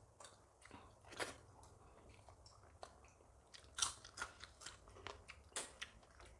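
Close-miked mouth sounds of a person eating: chewing with scattered sharp crunches and wet smacks, the loudest a little under four seconds in.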